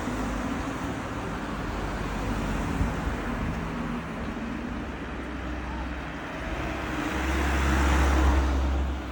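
A car passing on a road, growing louder to a peak near the end and then fading, over a steady rush of outdoor noise with a patchy deep rumble.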